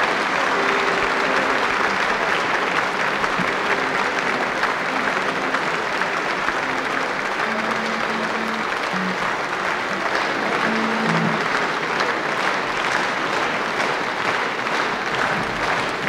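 Concert audience applauding steadily after a song, a dense sustained clapping.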